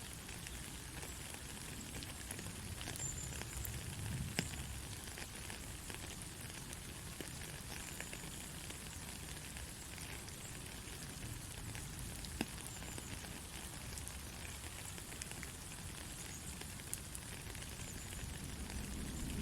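Soft, steady rain, with a few louder drops ticking now and then.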